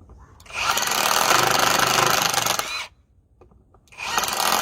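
Kimo cordless brushless impact drill running in two bursts of about two seconds each, with a short pause between them and the second starting near the end.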